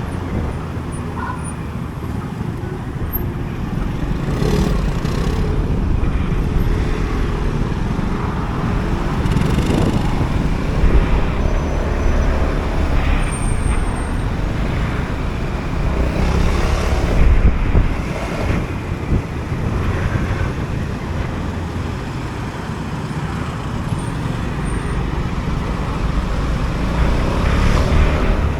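Honda Forza 250 scooter riding through city traffic: its single-cylinder engine runs steadily under a continuous rumble of road and traffic noise, swelling louder a few times as vehicles pass.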